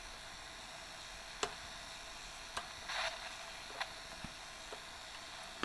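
Faint steady static hiss from a Kosmos X2000 kit's transistor reflex receiver turned up to full volume, tuned between stations and receiving nothing. A few sharp clicks and a short scratchy crackle about three seconds in break the hiss.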